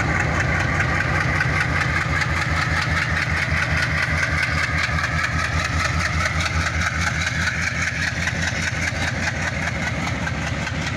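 ALCo-design WDM-3D diesel locomotive pulling away under power, its engine chugging with a steady low pulsing throb. The sound eases slightly near the end as the locomotive moves off and the coaches behind it roll past.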